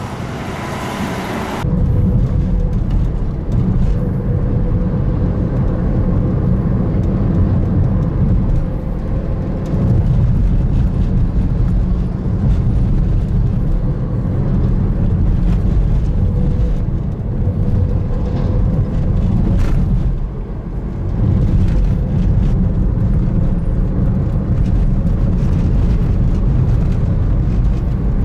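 Brief traffic noise at the roadside, then, about two seconds in, a steady low road rumble heard inside a moving car's cabin: engine and tyres on the road.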